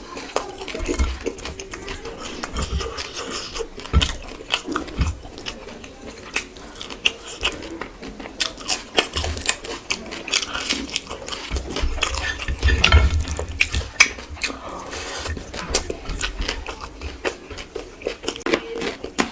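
Close-up eating sounds of rice and curry: chewing and mouth sounds with many short clicks and clinks of dishes.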